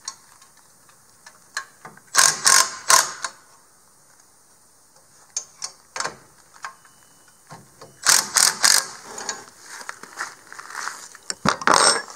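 Cordless impact driver rattling in short bursts as it loosens the bolts on a boat trailer's winch stand: a cluster about two seconds in, another about eight seconds in, and a last one near the end.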